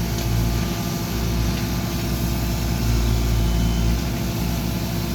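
Bobcat E32 compact excavator's diesel engine running steadily, heard from the operator's cab while the machine works.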